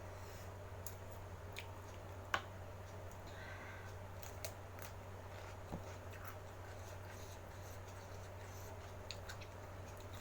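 Eating sounds: scattered small mouth clicks and soft chewing, with one sharper click about two seconds in, over a steady low electrical hum.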